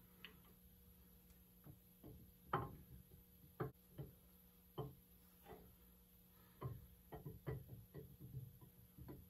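Faint, irregular metallic clicks and knocks as a steel camshaft is slid slowly out of a Ford 302 V8 block by hand, its lobes tapping against the cam bearings and block. The clicks come singly at first, the loudest about two and a half seconds in, then bunch together near the end.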